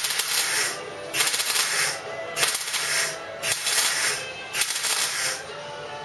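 MIG welder laying a stitch weld on steel body panel: five crackling bursts of about a second each, with short pauses between, filling the gap of a butt-welded seam.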